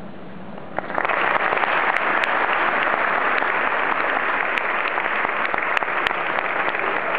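Concert hall audience applauding, breaking out suddenly about a second in and holding steady at the end of the piece.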